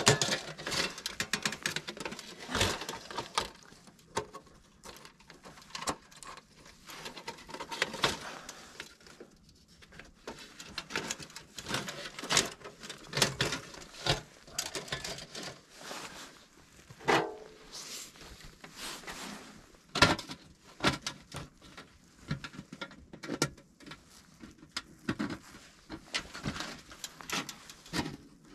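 Thin metal panels of a folding camp wood stove being handled and fitted together, with irregular clinks, taps and knocks of metal on metal.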